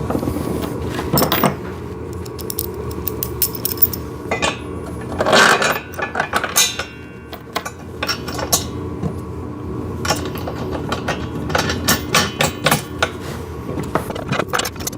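Metal clinking and clanking as steel bolts, washers and nuts are handled and fitted to a steel exercise-machine frame by hand, with many short knocks and clicks in bunches.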